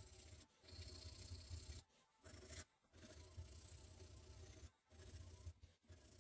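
Hand rubbing on a small hatchet: a faint, dry scraping rub in repeated strokes, broken by short pauses.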